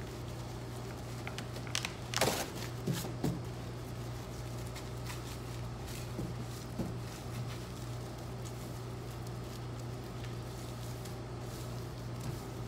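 Plastic wrap rustling and crinkling in short bursts as a wrapped pork roll is rolled and pulled tight on a stainless steel table, the loudest about two seconds in. A steady low machine hum runs underneath.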